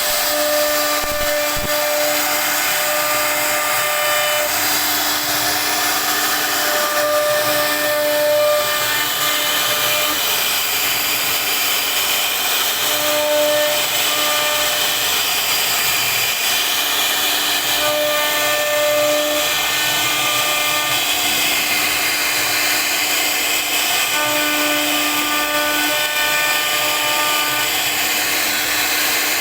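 CNC router spindle cutting into a wooden board: a steady high hiss with a pitched hum that comes and goes every second or two as the bit works through the wood.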